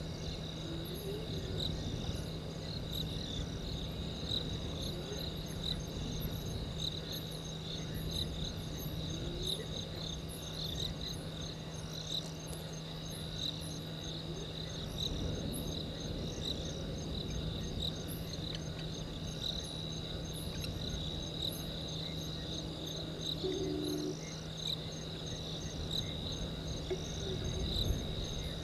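Night insect chorus: crickets trilling in a continuous, pulsing high trill, with faint higher chirps above it and a steady low hum underneath.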